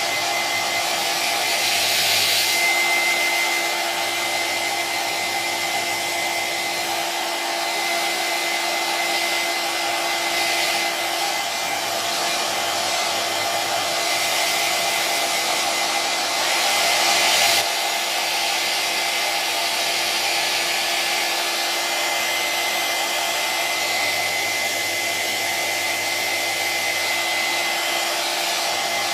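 Electric hair dryer running continuously: a steady rush of air over a low motor hum and a faint high whine, swelling slightly louder about two seconds in and again around seventeen seconds.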